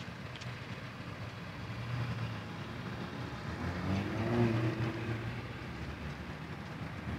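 Low hum of a distant engine, swelling about four seconds in and fading again.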